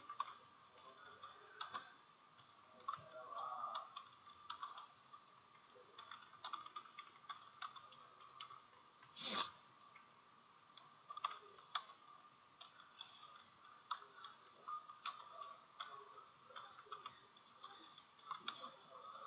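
Computer keyboard keys clicking irregularly as text is typed, quiet, over a faint steady high whine. About nine seconds in there is one louder, half-second burst of noise.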